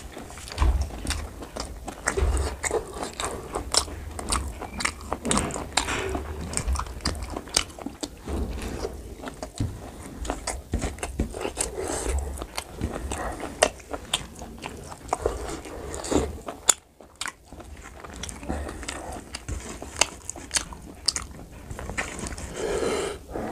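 Close-miked, wet chewing and lip smacking of pork curry and rice, a steady run of irregular sticky clicks, with a brief pause about seventeen seconds in. Fingers squelch through curry-soaked rice on the plate between mouthfuls.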